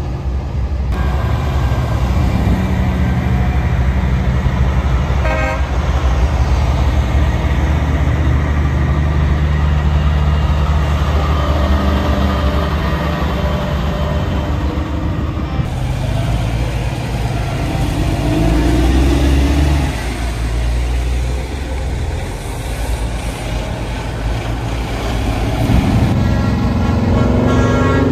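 Heavy semi-trailer trucks driving by with their diesel engines running, with horn toots among them.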